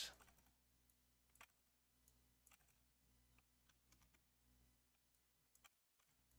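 Near silence with a few faint, scattered computer keyboard clicks as code is edited.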